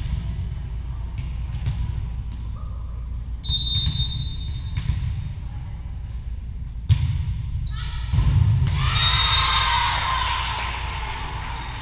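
Volleyball match in an echoing gym: a referee's whistle about a third of the way in, then the sharp smack of a serve a little past halfway. Spectators and players then cheer and shout loudly, fading toward the end.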